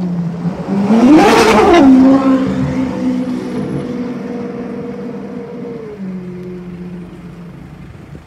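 Ferrari V12 supercar with a Novitec exhaust accelerating away. About a second in, the engine revs sharply up and falls back. It then runs on at a steady pitch as the car pulls away, slowly fading.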